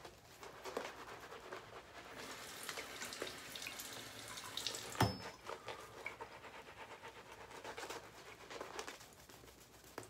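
Paladin Beehive limited-edition shaving brush face-lathering, its wet bristles swirling and squishing lather on the skin with a soft, crackly sound. A single sharp click about five seconds in.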